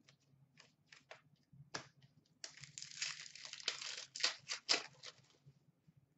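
A few light clicks of trading cards being handled, then about three seconds of a trading-card pack wrapper crinkling and tearing open, with a couple of sharp louder rips near the end.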